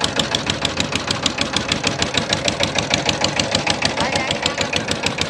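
Wooden river boat's engine running steadily, firing in an even beat of about seven strokes a second.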